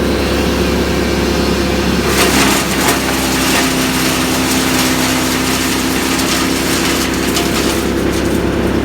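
An engine on tree-removal equipment running steadily at a held pitch. From about two seconds in to near the end, a rougher, crackling noise rises over it.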